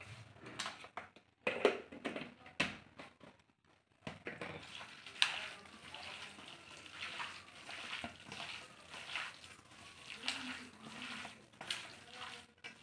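Hand squishing and kneading chicken pieces in a wet, oily spice marinade in a stainless steel bowl: irregular wet squelching. A few sharp knocks come in the first three seconds, then a short lull before the squelching runs on.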